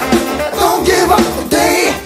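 Background music: a song with a sung vocal over a steady beat.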